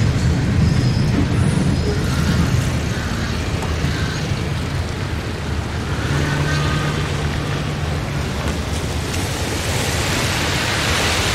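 Steady rumble of road traffic on wet pavement, with a low engine hum setting in about halfway and a tyre hiss swelling near the end as a vehicle passes.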